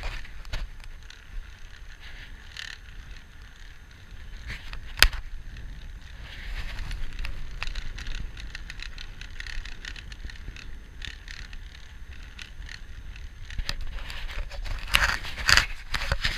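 Road bike rolling along a tarmac street, heard from a handlebar-mounted action camera: a steady rush of rolling noise with scattered clicks and rattles from the bike. One sharp knock comes about five seconds in, and a louder flurry of clicks comes near the end.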